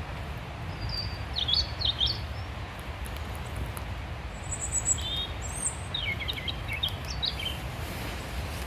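Small songbirds calling in short chirps: a cluster about a second in, thin high notes around the middle, and another run of chirps near the end, over a steady low rumble.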